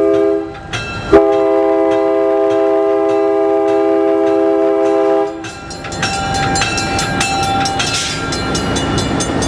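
Napa Valley Wine Train diesel locomotive's air horn at a road grade crossing, heard from the cab: a short blast, then a long blast of about four seconds. Then the locomotive runs on with engine rumble and rail clatter.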